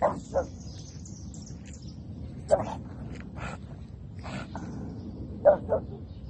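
A pug's short barks. They come scattered through, the loudest as quick pairs at the start and near the end, over a steady low rumble.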